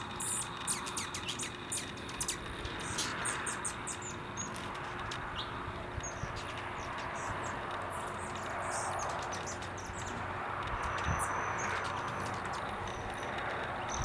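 Hummingbirds at nectar feeders giving rapid, very high chip calls and twitters, thickest in the first few seconds and scattered after. A thin, steady high note is held for about a second near eleven seconds in, over a steady background rush.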